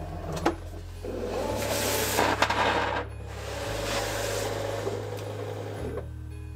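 Cricut cutting machine's feed motor and rollers drawing in a sheet of Smart Vinyl without a mat, after its load button is pressed: a click, then mechanical whirring that changes tone about three seconds in and dies away near the end.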